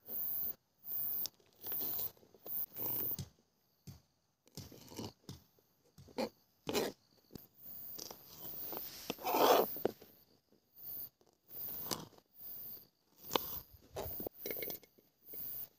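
Knife cutting capsicum (green bell pepper) into pieces: crisp, crunchy cuts at irregular intervals, with a longer, louder scraping rustle about nine seconds in.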